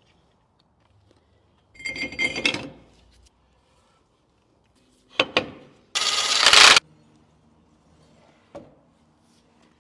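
Metal hand tools clinking and scraping on steering parts: a ringing clatter about two seconds in, a sharp click a little after five seconds, then a short burst of harsh noise and a small click near the end.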